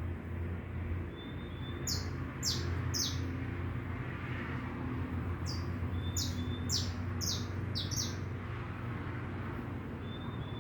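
Saffron finch singing: two phrases of short, quick, downward-sliding notes, one about two seconds in and a longer one from about five and a half to eight seconds, with a few soft thin notes between. A steady low rumble of background noise runs underneath.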